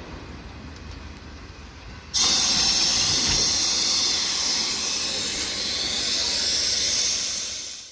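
Steam locomotive letting off steam: a loud hiss starts suddenly about two seconds in, holds steady for several seconds, and fades near the end.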